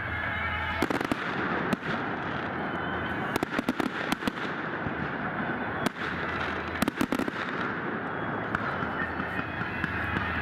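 Festive fireworks display: scattered sharp bangs and crackles over a steady hiss, with rapid clusters of reports about three and a half seconds in and again about seven seconds in.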